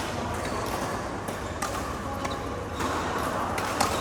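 Badminton rally: several sharp strikes of rackets on a shuttlecock, irregularly spaced, over a steady background din.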